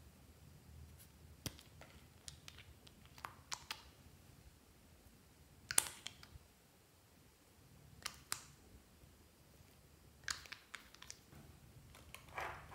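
Faint, sparse plastic clicks and taps from handling a small doll-shaped plastic bottle and its cap, about ten in all, with a sharper click about six seconds in.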